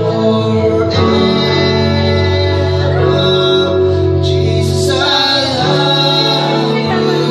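Live worship band playing a song: electric guitars playing sustained chords with voices singing.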